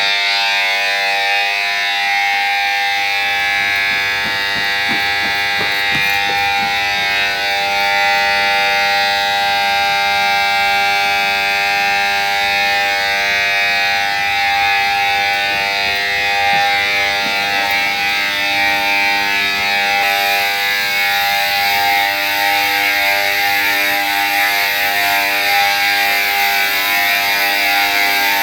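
Railway station emergency bell sounding continuously, a loud, steady multi-tone ring that never lets up: the platform emergency alarm has been triggered, which the uploader takes to be a call for a passenger taken ill.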